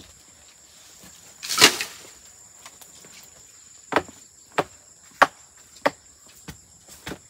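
A loud, short noisy burst about a second and a half in, then sharp knocks at an even pace, about three every two seconds, over a steady high insect buzz.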